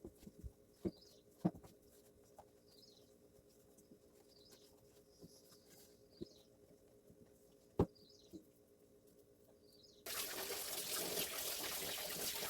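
Scattered light clicks and knocks of kitchen utensils, with a bird chirping faintly about once a second. About ten seconds in, a tap is turned on and water runs hard into the sink.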